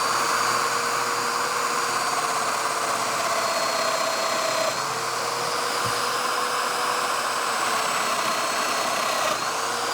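Festool Domino joiner running steadily, a motor whine over an even rushing hiss, while cutting mortises in cabinet parts.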